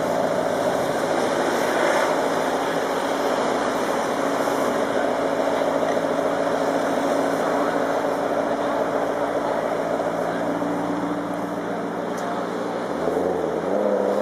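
Sports car V8 engine idling steadily, then the revs rise near the end.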